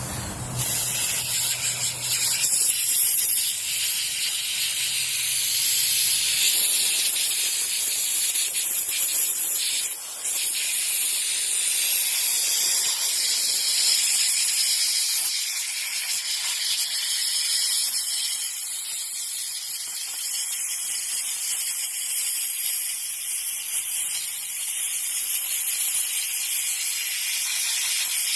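An aerosol spray can hissing in a long, steady spray, cleaning grime out of a motorcycle's handlebar turn signal switch, with a short break about ten seconds in.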